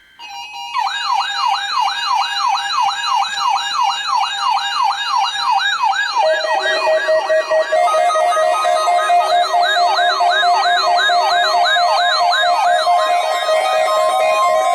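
Weather radio alert alarms sounding for a NOAA Weather Radio required weekly test: a warbling, siren-like tone rising and falling about two and a half times a second. About six seconds in it is joined by a lower, pulsing steady beep, and a little later by a steady higher tone.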